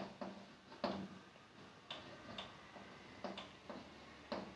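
Chalk tapping against a blackboard as words are written: a string of faint, irregularly spaced clicks, about eight in all.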